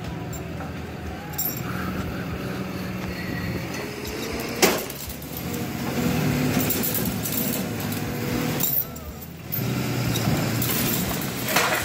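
Ram pickup truck's engine running and revving as it strains on a chain tied to a tree, with a sharp knock about halfway through and a loud burst of noise near the end as the tree starts to give way.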